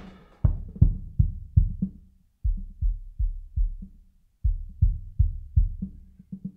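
Logic Drummer drum-kit loop heard solo through the compressor's side-chain low-pass filter as it is swept down: the cymbals and upper drum sound fade away within the first second, leaving only muffled low kick-drum thumps, about two and a half a second, in phrases with short breaks. The filter is being tuned to isolate the kick frequencies.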